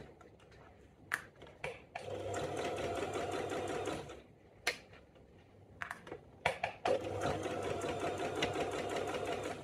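Domestic sewing machine stitching a zip seam with a zipper foot, in two steady runs of a couple of seconds each, stopping in between; a few sharp clicks fall in the pauses.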